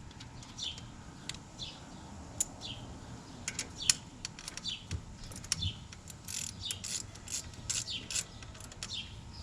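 Small birds chirping over and over in short, high, falling chirps, with occasional sharp clicks between them.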